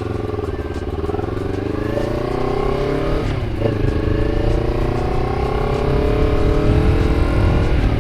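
Honda CBR250RR with a KEA Speed aftermarket exhaust accelerating: the engine note rises steadily, dips at a gear shift about three and a half seconds in, rises again through the next gear, and shifts once more near the end. Wind rumble grows as speed builds.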